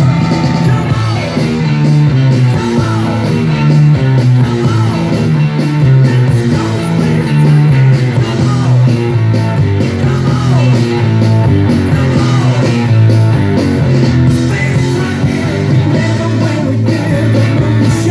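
A song with singing, guitar and a moving bass line, played from cassette on a Nakamichi BX-2 deck through B&W 2002 bookshelf speakers and heard in the room.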